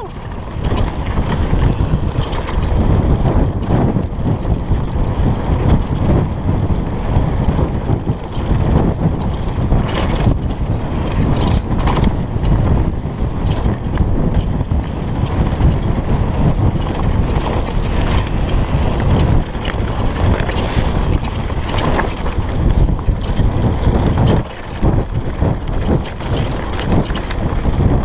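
Heavy wind buffeting the microphone of a fast-moving downhill mountain bike, with the clatter and knocks of the Specialized Demo's chain, frame and suspension over a rough dirt trail.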